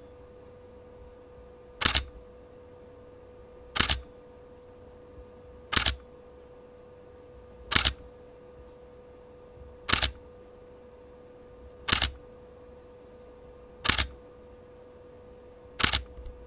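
Canon EOS R8 mirrorless camera firing its shutter in single-shot mode, eight separate sharp shutter clicks about two seconds apart.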